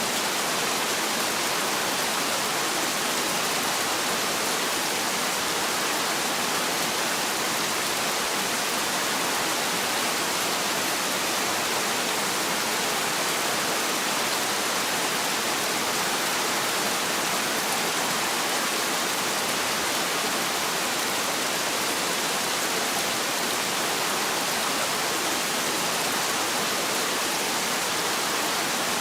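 Heavy rain falling steadily: a constant, even hiss with little low rumble and no thunder.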